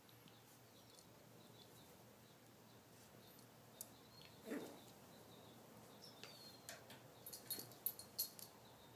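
Two miniature pinschers play-fighting, mostly quiet: faint scuffling on a shag rug, a short low growl about halfway through, and a cluster of small clicks and rustles near the end.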